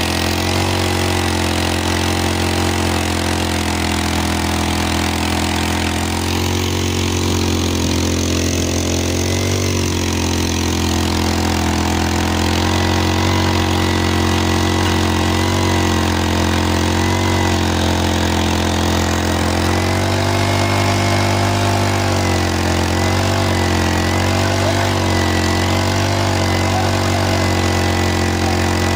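A small engine running steadily, its pitch wavering slightly now and then.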